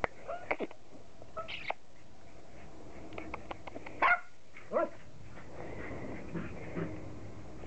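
Border collie puppies giving a few short, high yips and barks, the loudest two about four and five seconds in.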